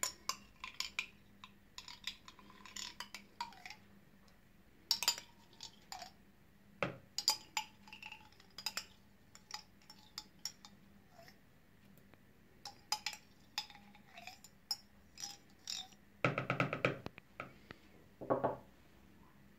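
A spoon scraping and tapping yogurt out of a small cup into a plastic mixing bowl of raw eggs: a scattered run of light clicks and taps with quiet gaps.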